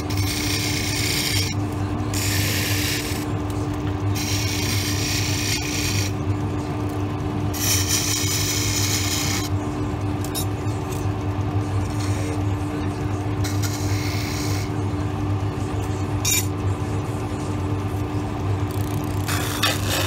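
Wood lathe running steadily while a hand turning tool cuts the spinning wooden blank, in several hissing passes of a second or two each; the cutting stops in the last few seconds, leaving the lathe's hum.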